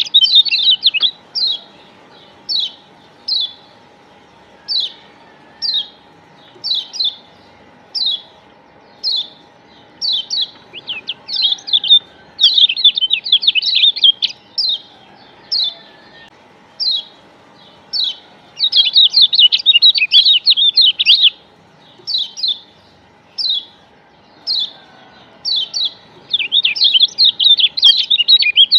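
Kecial kuning (Lombok yellow white-eye, a Zosterops) calling: sharp, downward-sliding chips about once a second, broken three times by bursts of fast chattering. It is a pancingan lure track, played to set captive kecial singing.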